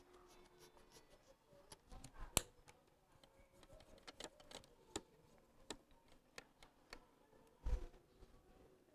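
Faint, irregular clicks and ticks of enamelled copper magnet wire being pushed by hand into the slots of a three-phase motor's steel stator. There is a sharper click about two and a half seconds in and a duller knock near the end.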